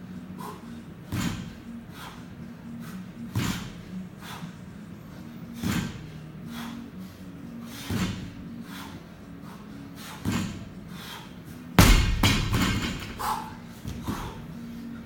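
An athlete breathing hard, with a loud exhale about every two seconds. About twelve seconds in, a barbell loaded with bumper plates is dropped onto the floor mats with a loud thud and a rattle of the plates.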